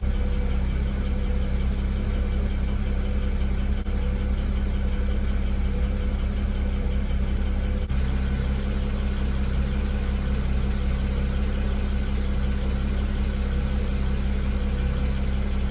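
BMW 335i's N54 twin-turbo straight-six idling steadily, left running to hold battery voltage up during module coding.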